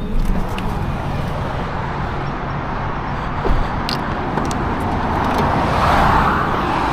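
Steady road traffic noise, with a car passing by that swells and fades about six seconds in.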